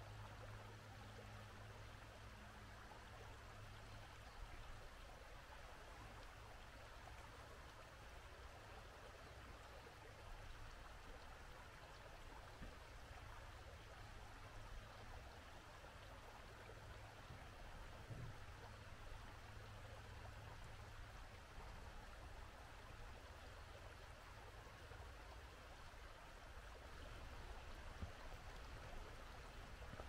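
A mountain stream running steadily, a faint, even rush of water. A low hum joins it for the first few seconds and again about eighteen seconds in.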